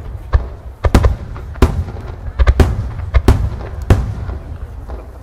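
Aerial firework shells bursting in a rapid series: about ten sharp booms in five seconds, some in quick pairs, over a continuous low rumble of echoing reports.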